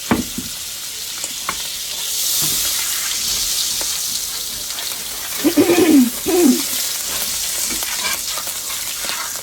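Butter and olive oil sizzling in a hot cast-iron skillet, a steady hiss that swells for a few seconds in the middle. There is a sharp click at the start, and two short pitched sounds a little past the middle.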